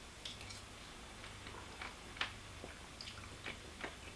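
Faint, irregular small clicks and ticks, about a dozen spread unevenly, the clearest a little after two seconds in, over a steady low hum.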